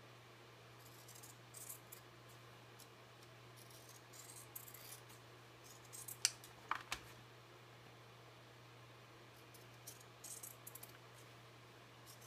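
Scissors snipping through the paper edge of a glued faux-leather cover, in several short runs of quiet cuts with a few sharper clicks a little after six seconds in. A steady low hum sits underneath.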